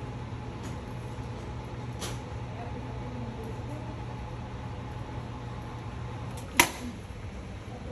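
Electric hospital bed's motor humming steadily as the bed is raised with the side-rail control buttons; about six and a half seconds in the hum stops at a sharp click.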